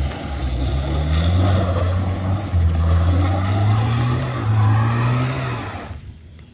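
Toyota Avanza engine revving hard under load as the car struggles up a steep dirt slope, its pitch rising and falling. It drops away suddenly near the end.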